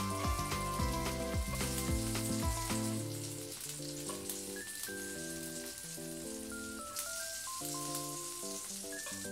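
Background music with a deep beat that drops out about three seconds in, leaving a lighter melody. Under it runs a steady crackling sizzle of hot fried food.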